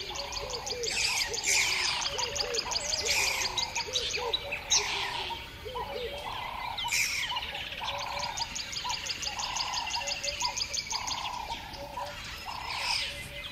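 Several birds singing: chirps and long rapid trills, over a lower call repeated about once a second.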